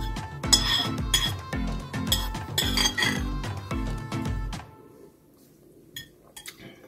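A spoon clinking and scraping against a ceramic soup bowl several times, sharpest in the first three seconds, over background music with a steady low beat. The music stops about two-thirds of the way through, leaving a few faint clicks.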